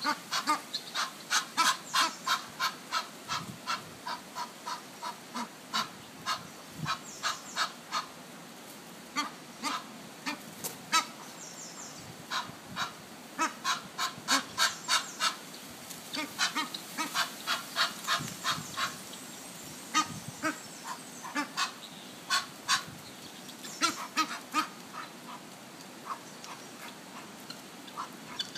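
Egyptian geese honking: short calls repeated several times a second in long runs, broken by a few brief pauses.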